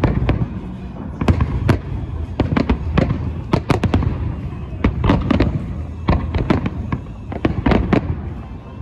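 Aerial firework shells bursting in quick, irregular succession: many sharp bangs, several often close together, over a continuous low rumble from the display.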